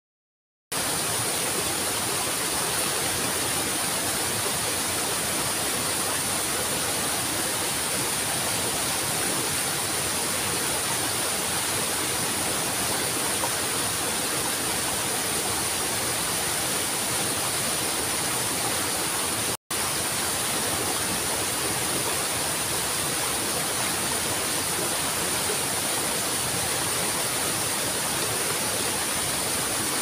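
Waterfall splashing down over rocks in several small cascades: a steady, even rushing of water that starts just under a second in. The sound cuts out for an instant about two-thirds of the way through.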